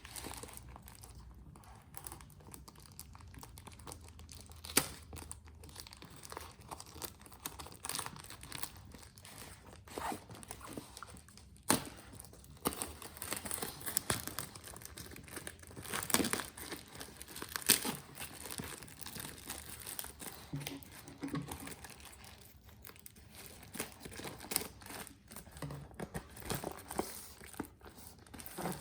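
Packaging being unwrapped by hand: crinkling and tearing, with a few sharp clicks and knocks.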